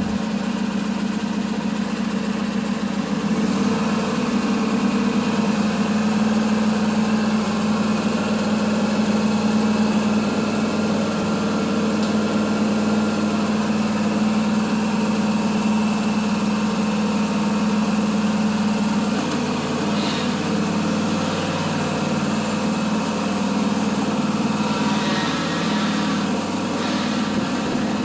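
Husqvarna TS248 XD riding lawn mower engine running steadily, getting a little louder a few seconds in.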